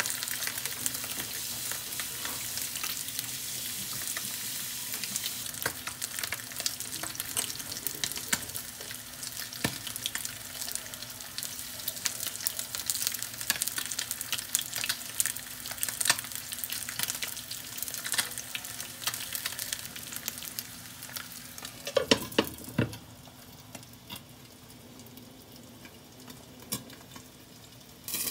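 A whole Waigieu sea perch and garlic cloves sizzling and crackling in hot oil in a non-stick frying pan. A few clanks come about 22 seconds in as a glass lid goes on. After that the sizzle carries on, quieter and muffled under the lid.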